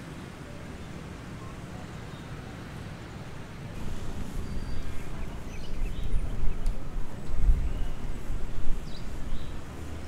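Outdoor background rumble, low and uneven, that grows louder and gusts from about four seconds in, like wind buffeting the microphone.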